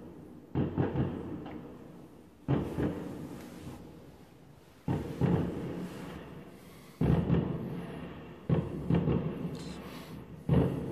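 Aerial fireworks bursting: six deep bangs, one every two seconds or so, each followed by a rolling echo that dies away over a second or two.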